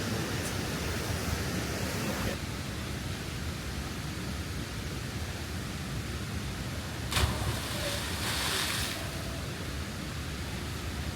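Steady rushing of a waterfall. A sharp knock comes about seven seconds in, followed by a burst of brighter hiss lasting about a second.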